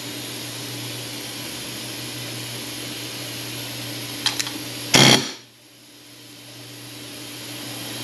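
Pneumatic air hammer firing one short burst about five seconds in, peening the low side of a bent big-block Chevy roller camshaft's journal to straighten it, with a couple of quick clicks just before. A steady machine hum runs underneath.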